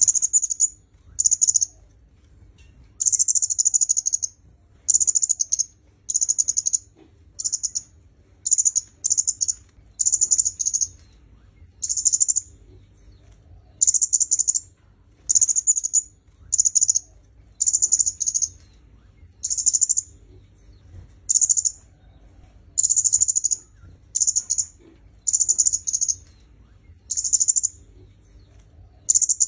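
Kemade kepala merah, a small red-and-black songbird, singing: short, very high-pitched twittering phrases repeated about once a second with brief pauses between.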